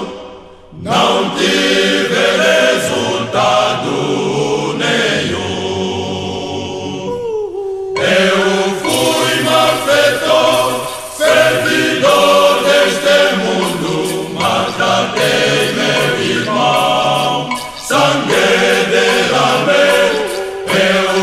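Male choir singing a hymn in several-part harmony. The voices break off briefly at the start and again about seven seconds in, then come back fuller.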